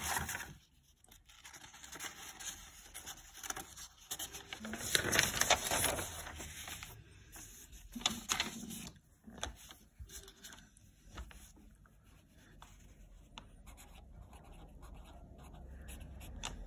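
Sheets of paper rustling as they are handled and laid down, loudest about five seconds in. Near the end comes the soft scratching of a felt-tip marker writing on paper.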